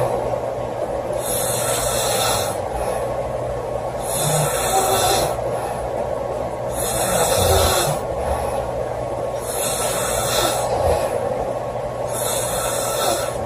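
A woman snoring loudly, with a noisy breath about every two and a half to three seconds, five in all, over a steady low hum.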